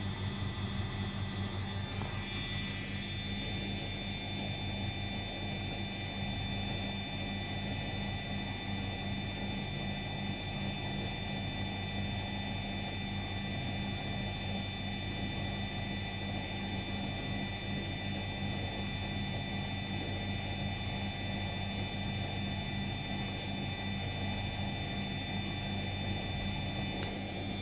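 Luxor WM 1042 washing machine spinning with an unbalanced load: a steady low hum from the drum and motor under a constant high-pitched motor whine.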